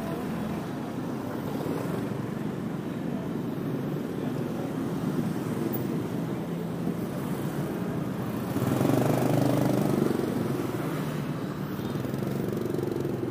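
City street traffic, mostly motorbikes and scooters, running steadily, with one passing louder about nine seconds in.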